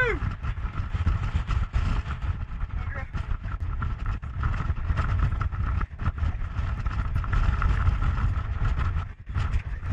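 Wind rumbling and buffeting across the microphone on a moving boat at sea, with scattered knocks and a faint steady high hum underneath.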